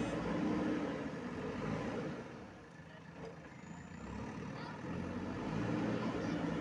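Four-cylinder diesel engine of a JCB 3DX backhoe loader running under work. It eases off about two and a half seconds in, then builds up again.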